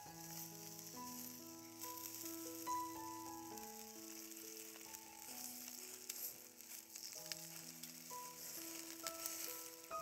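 Oil from chicken wings on a charcoal grill sizzling on the hot coals, a steady hiss with many small pops. A soft melody of background music plays alongside.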